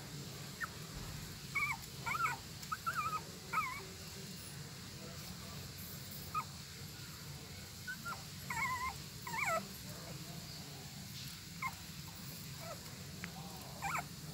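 Newborn puppies squeaking and whimpering while they suckle: short, high squeals that slide up and down in pitch, coming in scattered clusters, with a steady low hum underneath.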